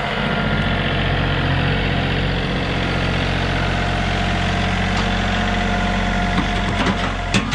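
John Deere compact tractor's diesel engine running steadily while it works the front loader to lift a full bucket. Near the end come a few knocks as the bucket tips its load of beaver carcasses into the trailer.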